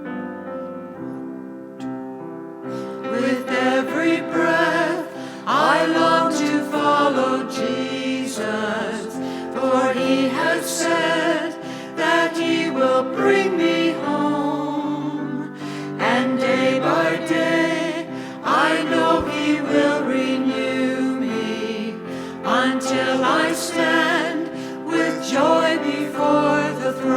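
Choir singing a hymn over a sustained keyboard accompaniment, with the voices coming in about three seconds in after a short keyboard introduction.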